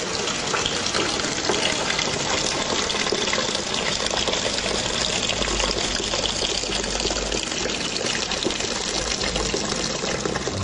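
Kitchen tap running, a steady stream splashing into a plastic tub in a stainless steel sink.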